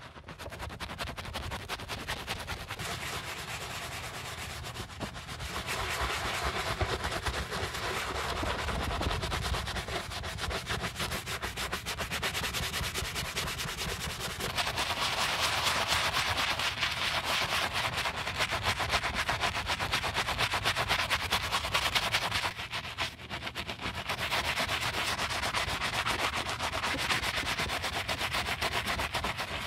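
Wooden-handled bristle brush scrubbing a soap-lathered Adidas Superstar sneaker, working over the rubber sole and then the leather upper in quick back-and-forth strokes. The scrubbing is nearly continuous, with a couple of brief pauses.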